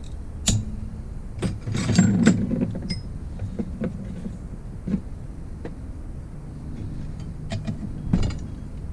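Metal hand tools clinking and knocking against engine parts during a teardown. Scattered sharp clicks, with a louder clatter about two seconds in and more near the end, over a low steady hum.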